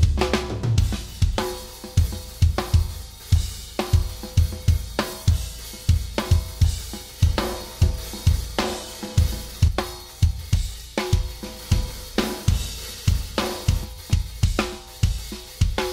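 Isolated drum tracks from a raw progressive-metal multitrack recording being played back: dense, fast kick-drum hits under a snare crack about once a second, with cymbals and hi-hat.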